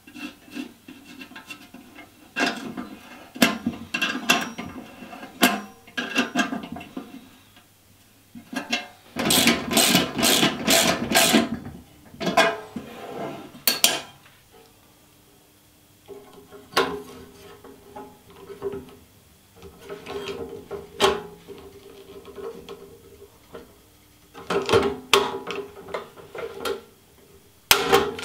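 Hands assembling a steel ammo-can tent stove: metal parts clink, tap and scrape as nuts, bolts and fittings are put on, with a quick run of rapid clicking about ten seconds in.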